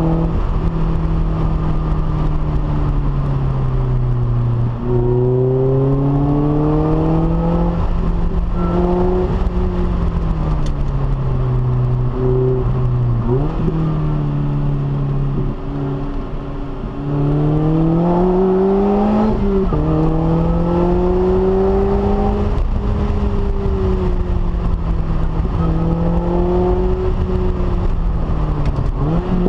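Lotus Elise S's supercharged four-cylinder engine, breathing through a Stage 3 exhaust, accelerating hard. The pitch climbs through each gear and drops sharply at repeated upshifts. Past the middle, the throttle eases off briefly and the sound dips before it pulls again.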